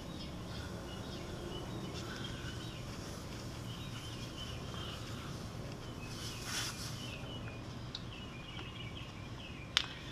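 Short hiss of gas at a motorcycle tire valve stem from a CO2 cartridge inflator, a little past the middle, and a sharp click near the end as the inflator is handled. Small birds chirp over and over throughout.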